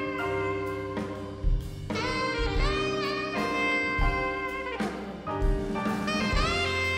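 Small jazz band playing: a lead instrument holds long notes that slide up into pitch, over a bass line and drums, with an electric guitar in the group.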